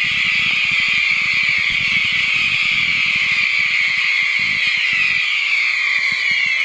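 Fireworks display: a loud, dense mass of high whistling and crackling from many effects at once, with rapid low pops underneath.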